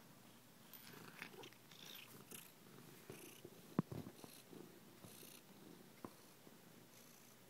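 Siamese cat purring faintly right against the microphone, with fur rubbing on it. There is a sharp tap just before four seconds in and a smaller one around six seconds.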